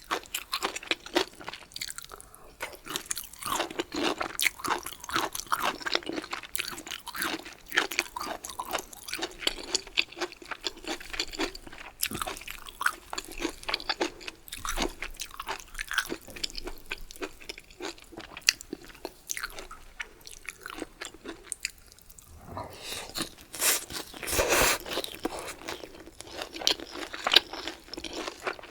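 Close-miked chewing of crunchy bamboo shoots, a quick, steady run of crisp crunches and mouth sounds. Near the end, after a brief pause, comes a louder burst of crunching.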